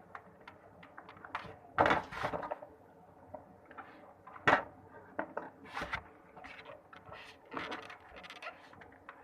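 Irregular knocks, clicks and clatter of objects being handled, with the loudest knocks about two, four and a half and six seconds in.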